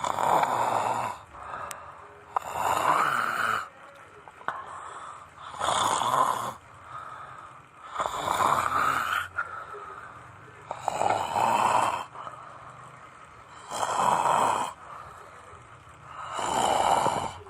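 A person snoring: seven loud snores, one about every two and a half to three seconds, each lasting about a second.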